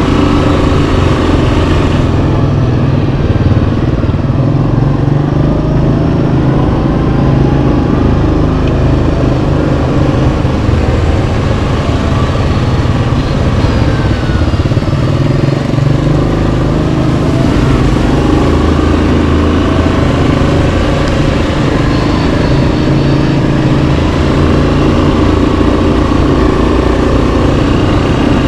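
Yamaha Kodiak 700 ATV's single-cylinder engine running steadily while riding a trail, its pitch rising and falling a little with the throttle.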